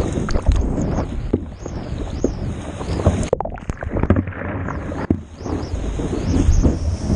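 Water rushing and splashing against a stand-up paddleboard riding a breaking wave, with wind buffeting the board-mounted action camera's microphone. The sound briefly goes muffled about halfway through.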